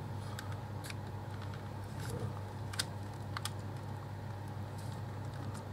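Light, scattered plastic clicks as the front lens cover of a partly dismantled camcorder is worked loose by hand, over a steady low hum.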